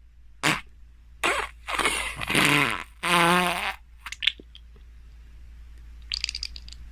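Cartoon fart and pooping sound effects: a string of short, loud blasts, some of them pitched, in the first four seconds, then a few clicks and a brief crackle near the end.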